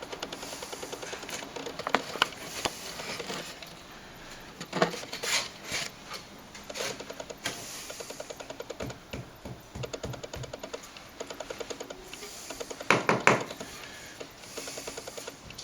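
Hand work on plaster: runs of short scraping strokes and clicks as the plaster vent and cornice cement are worked by hand and with tools, with a few sharper knocks about 2 s in, about 5 s in and about 13 s in.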